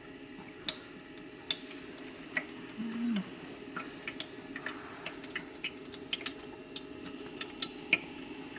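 Ultrasonic cool mist humidifier running: a steady low hum with many small, irregular ticks and drips of water.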